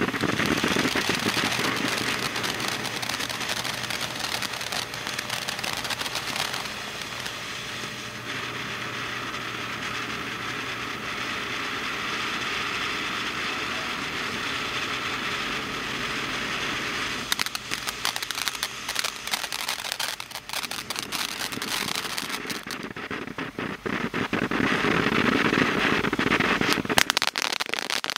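Texas Outlaw 'Misunderstood' fireworks fountain spraying sparks: a continuous hiss with crackling. It eases off through the middle and grows louder and more crackly over the last few seconds.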